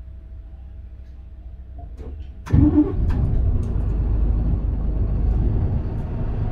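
Mitsubishi Fuso Aerostar LKG-MP37FK bus's six-cylinder diesel engine starting up suddenly about two and a half seconds in, after the low hum of the bus standing at a red light, then running steadily as the bus pulls away.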